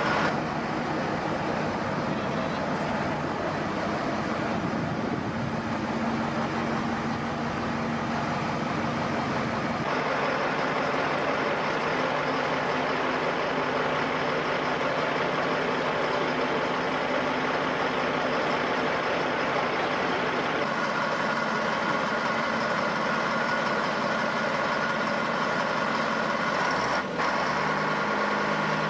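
A heavy truck engine idling steadily. Its tone changes abruptly about ten seconds in and again about twenty seconds in.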